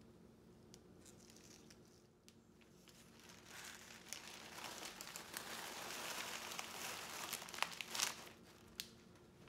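A sheet of paper holding leaf trimmings being folded and crumpled up: a dense crinkling that starts about a third of the way in, with a few sharp crackles near the end.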